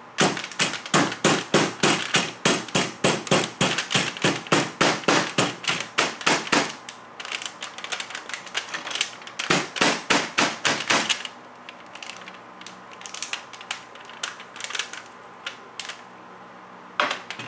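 Claw hammer rapidly striking the double-folded edge of a stainless steel foil heat-treating packet on a metal-topped bench, crimping the seal near airtight. About six blows a second for several seconds, a pause, a second shorter run, then scattered lighter taps.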